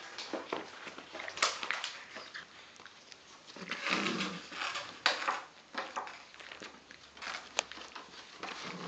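Six-week-old puppies playing and scuffling on bedding: scattered rustling and light clicks, with a longer, louder rustle about four seconds in.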